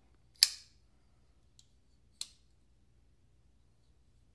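Hinderer Eklipse folding knife being flicked open on freshly fitted phosphor-bronze Skiff bearings: the blade snaps out and locks with one sharp, loud click about half a second in. A lighter click follows about two seconds in.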